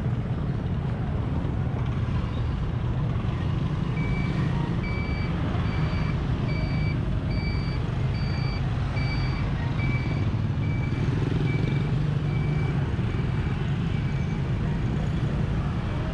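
A vehicle's reversing alarm beeping at an even pace, about one short high beep a second, starting about four seconds in and stopping near the end. A steady low rumble of engines and traffic runs beneath it.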